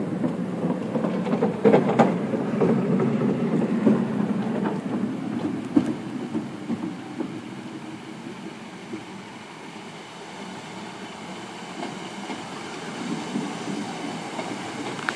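Greater Anglia passenger multiple-unit train running along the tracks, a steady wheel-and-rail rumble with sharp clicks over rail joints and points. Loudest over the first few seconds, then easing.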